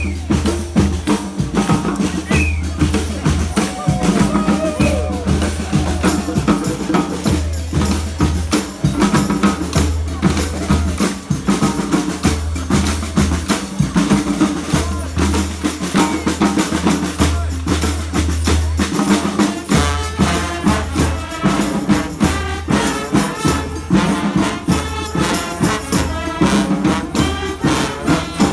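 Street brass band playing a Panamanian murga, with busy drum and cymbal hits throughout and a low bass line in notes about a second long underneath.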